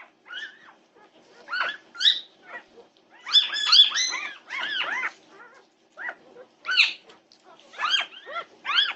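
Litter of young Norwegian Buhund puppies squealing and crying: many short, high, rising-and-falling cries that overlap, thickest about three to five seconds in, over a faint steady hum.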